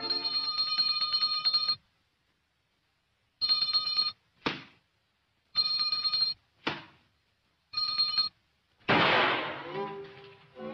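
Cartoon sound effect of a handbell rung in rapid shakes, in four bouts of ringing: a long one, then three shorter ones a couple of seconds apart, with quick swishes between. Near the end comes a louder noisy rush that dies away over about a second.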